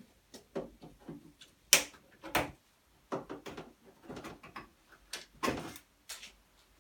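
Snips cutting the cable ties that hold a motorcycle's plastic fairings, with the panels knocking and clicking as they are worked loose: an irregular run of short clicks and knocks, the sharpest a crisp snap about two seconds in.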